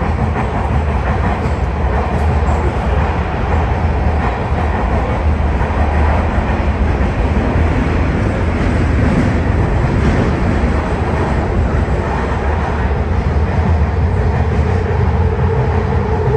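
MARTA heavy-rail subway train running at speed, heard from inside the car: a steady, loud rumble of wheels on rail, with a steady hum coming in near the end.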